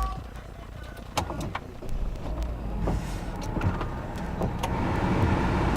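A few sharp clicks, then a car's heater blower fan coming on, a steady rush of air that builds and is strongest near the end.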